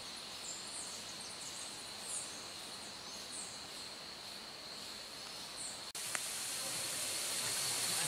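Faint forest ambience: a steady high insect hum with scattered short, high-pitched chirps. About six seconds in, the sound cuts abruptly to a louder, hissing ambience.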